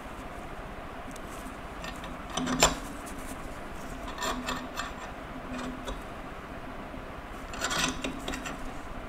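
Swiss Army knife and its new scales being worked in a bench vise: one sharp click about two and a half seconds in, then short bouts of clicking and scraping.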